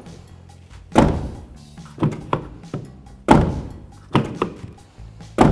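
Toyota FJ Cruiser front door being worked by its new outside handle: a series of about six latch clunks and door thunks, the loudest about a second in, just past the middle and at the very end. The new handle and latch work properly.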